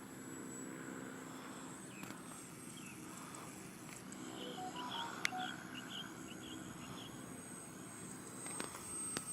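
Faint outdoor ambience with a steady low hum and a thin high whine. About four and a half seconds in, a small bird gives a quick run of about ten short chirps lasting just over a second.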